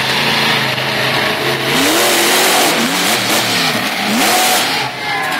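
Monster truck engine running at a steady note, then revving up and down several times from about two seconds in as the truck drives up onto junk cars.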